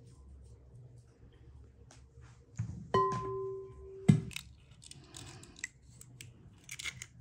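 Glass jug clinks against a glass mixing bowl about three seconds in, leaving the glass ringing with a clear tone for about a second, then knocks down onto the table. Around it, faint scraping and crackling of a knife paring orange peel.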